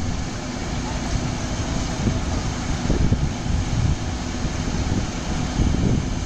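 Truck-mounted borewell drilling rig and its air compressor running steadily, a loud, even machine drone with a faint steady hum.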